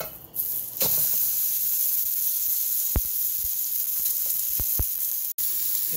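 Thick New York strip steak searing in hot oil in a stainless steel wok: it starts sizzling sharply about a second in as it meets the oil, then sizzles steadily, with a few dull knocks and a brief cut-out near the end.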